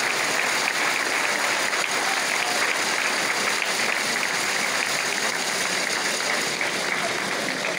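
An audience clapping steadily, a dense, even patter of many hands.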